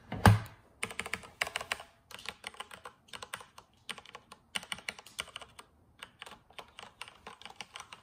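Fast typing on a Corsair K63 wireless mechanical keyboard with linear Cherry MX switches: a quick run of light key clacks, several a second, with a short pause a little past the middle. A single low knock comes right at the start, louder than the typing.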